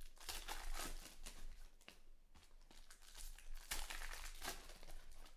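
Foil wrapper of a 2020 Panini Select Baseball card pack crinkling as it is pulled open and handled, in bursts, busiest near the start and again about four seconds in.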